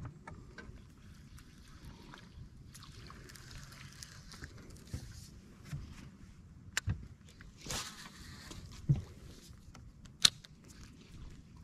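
Scattered small clicks and knocks from a baitcasting rod and reel being handled in a fishing kayak, with a brief hiss about eight seconds in and a sharp click about ten seconds in.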